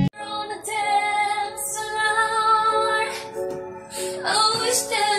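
A high, female-sounding singing voice holding long notes, starting right after an abrupt cut.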